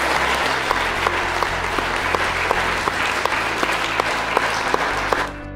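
An audience of schoolchildren clapping, stopping shortly before the end.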